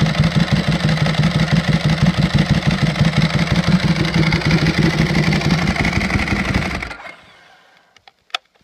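Ducati Streetfighter 1098 S's L-twin engine idling through a custom hand-made exhaust fitted with a dB killer, a steady, loping run of pulses. About seven seconds in the engine is shut off and dies away quickly, and a sharp click follows a second later.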